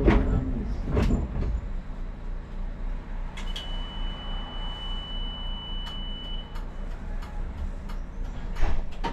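Škoda 03T6 tram with a steady low hum, sharp clunks now and then, and a single steady high beep lasting about three seconds in the middle, consistent with the doors closing at a stop.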